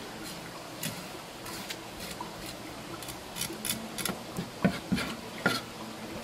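Knife cutting a small shark fillet on a cutting board: scattered light clicks and scrapes of the blade through the flesh and against the board, with a few sharper knocks in the second half.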